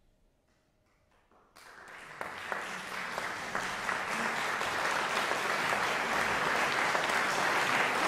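Audience applause breaking out about a second and a half in after a near-silent pause, swelling quickly and then holding steady.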